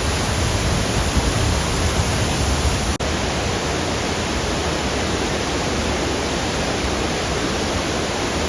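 Eagle Falls in powerful flow heard from right beneath it: a dense, steady, deafening roar of falling water, with a momentary break about three seconds in.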